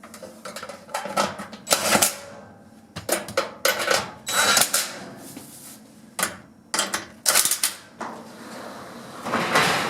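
Sheet-metal back panel of a gas range being handled and fitted back on: irregular metallic clattering knocks, with a longer scrape near the end.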